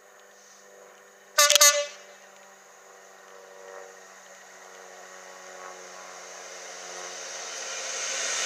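Class 66 diesel locomotive giving a short, loud horn blast about a second and a half in. Then the approaching train's engine and wheels grow steadily louder as it nears.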